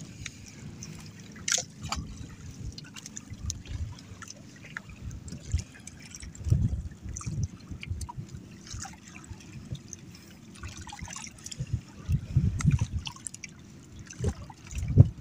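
Sea water lapping and trickling against the hull of a small wooden outrigger boat, with a few low thumps.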